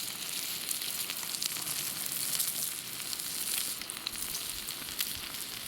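Eggs and bacon frying in a pan: a steady sizzle with many small crackling pops of spitting fat.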